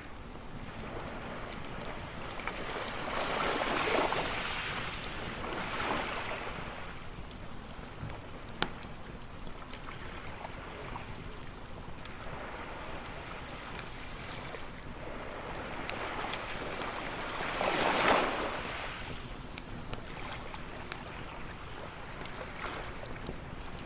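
Ocean waves washing onto a beach, swelling and breaking twice, about four seconds in and again near eighteen seconds, over a steady wash of surf. Scattered sharp pops and crackles of a wood campfire come through now and then.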